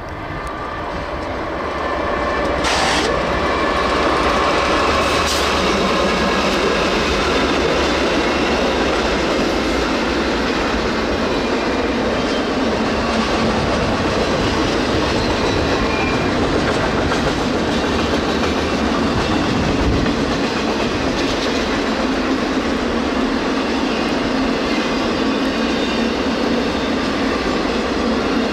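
Intermodal freight train's double-stack container cars and trailer flatcars rolling past close by: a steady rumble and clatter of steel wheels on the rails, growing louder over the first few seconds. Two sharp clanks come about three and five seconds in.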